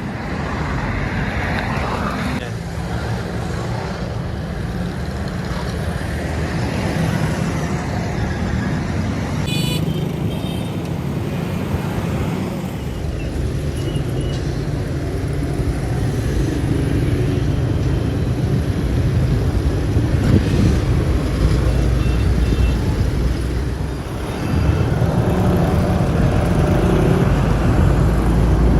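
Road traffic: vehicle engines running with a steady low rumble, and short horn toots a few times.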